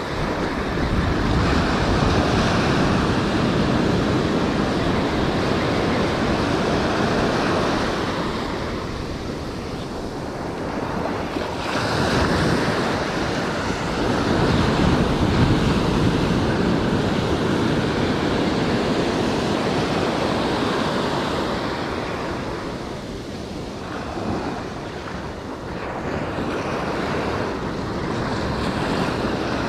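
Surf breaking and washing up a sandy beach, with wind rushing over the microphone. The noise rises and falls as the waves come in, loudest around twelve to sixteen seconds in.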